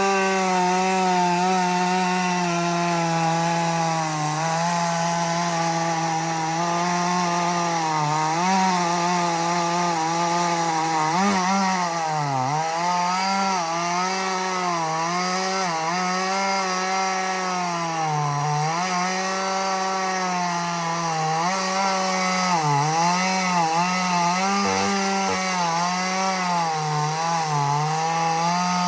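Echo CS-4510 chainsaw's two-stroke engine held at full throttle while cutting wood, its pitch sagging briefly and recovering again and again as the chain bites into the cut.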